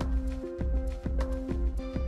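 Background music with a steady beat, sustained notes and a bass line.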